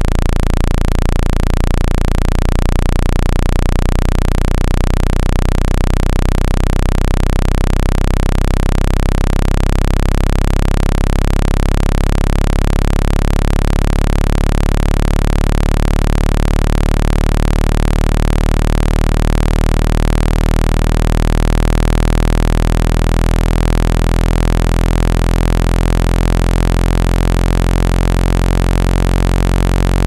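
Loud, steady low-pitched electronic hum with a stack of overtones and a slow wavering beat, played through the phone's speaker as a water-ejection tone to shake water out of the charging port.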